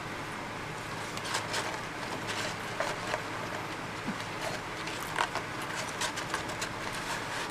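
Close-up chewing and mouth sounds of someone eating a crispy chicken sandwich: scattered short clicks and smacks at irregular intervals. A steady hiss from an electric fan runs underneath.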